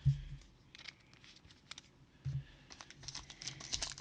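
Trading cards being handled: a sharp knock at the start, then scattered light clicks and taps. Near the end a foil card pack starts to crinkle.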